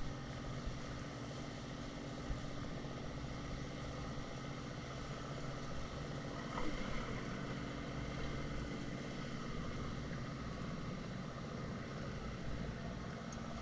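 Jet ski engine running at a steady speed, a constant hum with no change in pitch.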